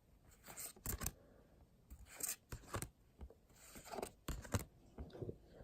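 Trading cards being slid and flicked through by hand, a series of short papery swishes and scrapes, about seven in all.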